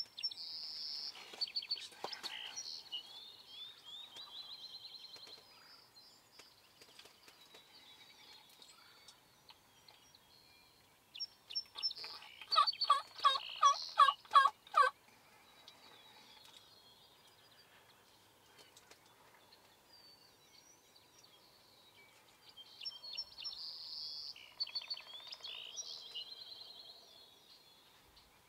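Wild turkey gobbler gobbling once about halfway through, a loud, rapid run of notes. Songbirds sing high chirps and trills at the start and again near the end.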